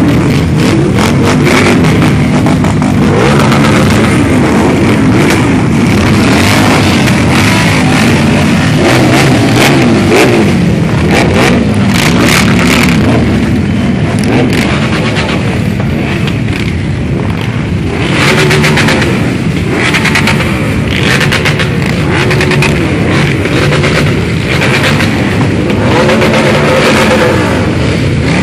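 A procession of many motorcycles, mostly cruisers, riding slowly past one after another. Their engines run without a break and rise and fall in pitch as the riders throttle up and ease off.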